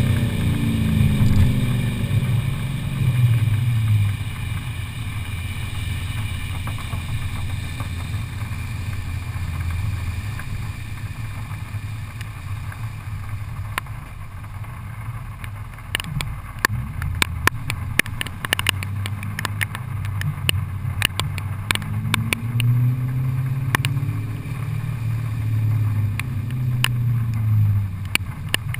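2001 BMW E39 M5's 4.9-litre S62 V8 heard through a muffler-delete exhaust with a Tubi resonated X-pipe: the note falls away as the car slows at first, runs steadily at moderate revs, then rises a little after twenty seconds and holds a louder note. Under it is a hiss of tyre spray on the wet road, with scattered sharp clicks in the second half.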